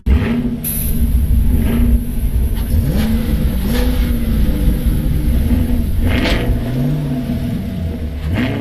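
An engine running with a heavy low rumble, its pitch rising and falling several times as if revving.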